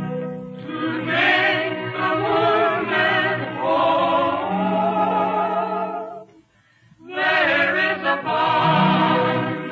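Male vocal group singing in close harmony, with wavering pitched voices over a low bass line, in an old narrow-band radio recording. The voices stop for under a second about six and a half seconds in, then come back in.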